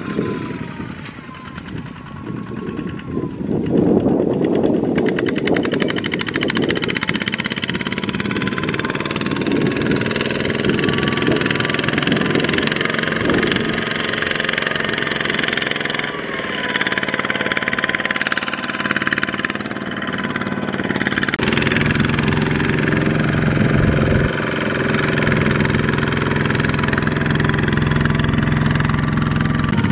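Single-cylinder diesel engine of a two-wheel walking tractor running steadily while pulling a loaded trailer across a harvested rice field. The engine sound changes abruptly about twenty-one seconds in.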